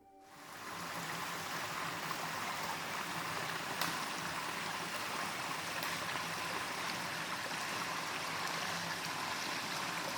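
Stream water flowing as a steady rush that fades in over the first second.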